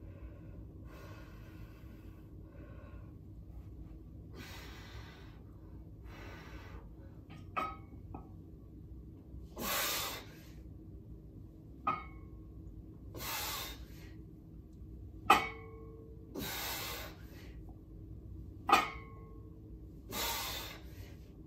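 A man breathing hard through a set of 205-pound barbell deadlifts: forceful exhales every couple of seconds, and from the middle on a sharp metallic clank of the iron plates on the bar about every three and a half seconds, four in all.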